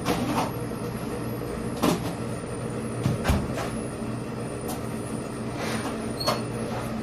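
Steady machine hum of commercial kitchen equipment, with several sharp knocks and clatters as metal trays and utensils are handled; the loudest come about two and three seconds in.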